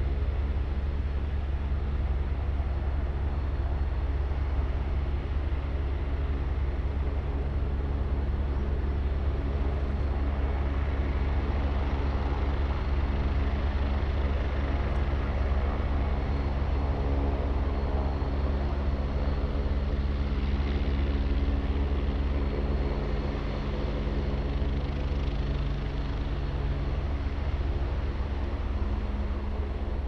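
Twin-turbine Agusta A109 helicopter running on the ground with its rotor turning, a steady engine-and-rotor hum with low steady tones.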